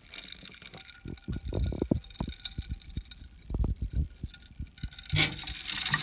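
Handling noise as a ceramic plate is carried into a microwave: a string of low bumps and thuds, then a sharper clack about five seconds in as the plate is set down or the microwave is handled.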